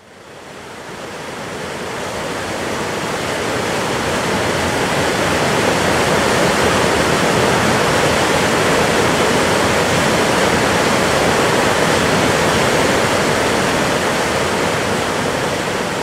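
Mountain stream rushing and splashing over boulders in small cascades: a steady, dense rush of water that fades in over the first few seconds and then holds even.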